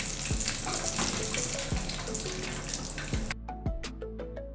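Hot oil sizzling in a steel pan as fried chilli masala is lifted out with a slotted spoon; the sizzle cuts off about three seconds in. Light background music plays throughout.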